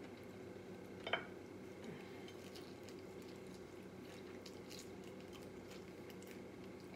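Quiet eating sounds: faint crunching and chewing of fried chicken, shrimp and fries, with small clicks of a fork against the plate. One short, sharp sound about a second in, over a steady low hum.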